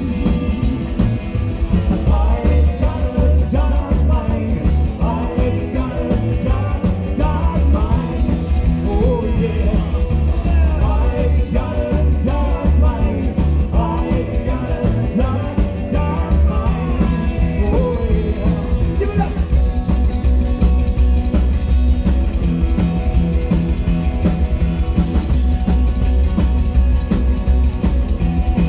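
Live rockabilly band playing: upright double bass, electric guitars and drum kit, with a male voice singing through about the first two-thirds, after which the band carries on instrumentally.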